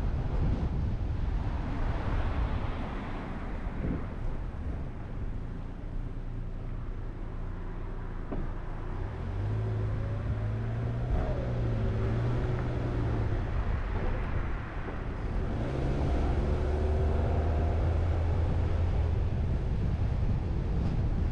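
Car driving on a street: a steady low rumble of road and wind noise, with the engine's hum coming up twice, about ten and sixteen seconds in, as the car accelerates.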